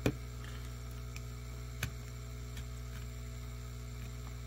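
Steady electrical hum, with a sharp click just at the start, another near two seconds in and a few faint ticks, as a hobby knife scrapes heat-softened adhesive off a circuit board.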